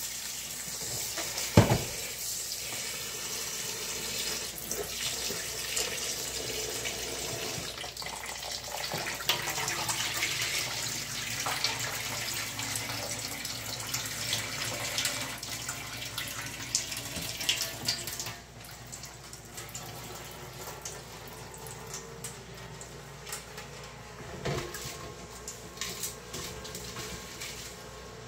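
Kitchen tap running into a sink, the water splashing over a colander of shrimp heads being rinsed, with a few knocks of handling. The water stops about eighteen seconds in, leaving only light clicks and clatter.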